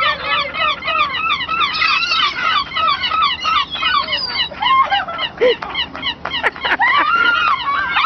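A flock of gulls calling, many short squawks overlapping in a constant din. About halfway in the calling thins to a few longer, arching cries.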